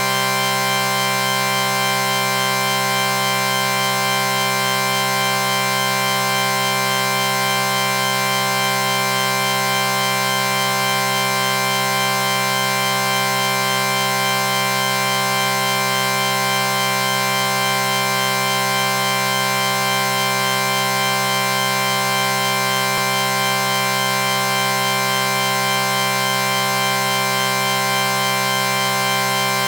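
A chord sound effect: several steady tones sounding together as one held chord, unchanging in pitch and loudness.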